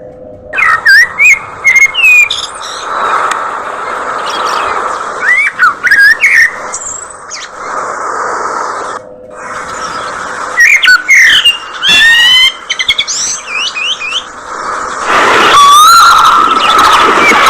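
Budgerigars chirping and chattering, many birds at once: sharp, quick chirps come in clusters over a constant busy chatter that grows loud near the end.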